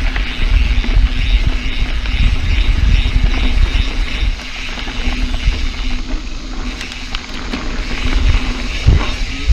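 Scott mountain bike rolling along a dirt singletrack, heard from a handlebar-mounted camera: a loud low rumble of tyres and wind on the microphone, with frequent small knocks as the bike rides over bumps and a heavier thump near the end.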